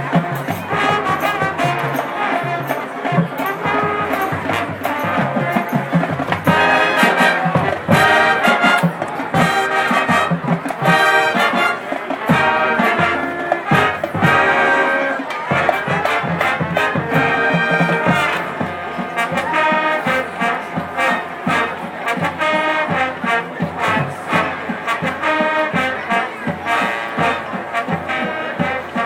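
High school marching band playing a jazz-style arrangement, with the brass section of trumpets and trombones carrying the music.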